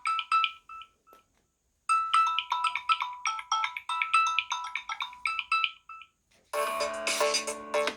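Samsung Galaxy A71 ringtones: a ringtone of quick, bright, short notes plays through its tune, breaks off briefly and repeats, then about six and a half seconds in a different, fuller electronic ringtone with lower notes begins.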